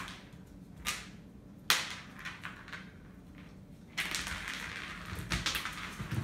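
A puppy batting an ice cube around a hard floor: a light click, then a sharp knock not quite two seconds in, and from about four seconds in a busy stretch of scraping and clattering as the dog scrambles after it.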